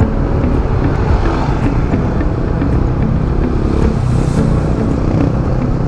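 Motorcycle engine running steadily while riding through city traffic, with a constant rumble of road and traffic noise.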